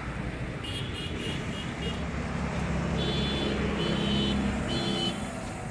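Passing road traffic: a motor vehicle's engine running past, louder around the middle, with a high-pitched horn sounding a quick string of short beeps and then three longer toots.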